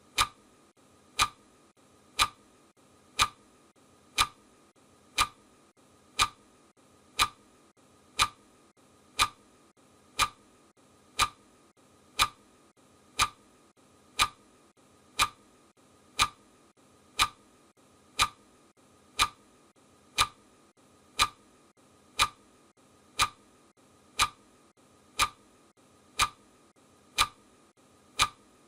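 Clock ticking sound of a countdown timer: one sharp, even tick a second, steady throughout.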